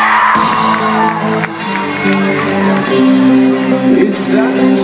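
Live rock band playing loud, amplified, with held chords over drums and cymbals, mixed with the crowd shouting and whooping.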